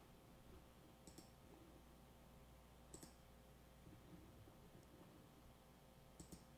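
Near silence with room hum, broken by a few faint computer mouse clicks: one about a second in, one about three seconds in, and two close together near the end.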